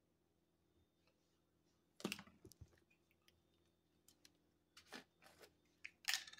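Scattered faint clicks, taps and a few short rattling shakes as a plastic seasoning shaker is handled and shaken over salmon fillets on a glass cutting board, with a sharper knock about two seconds in and another near the end.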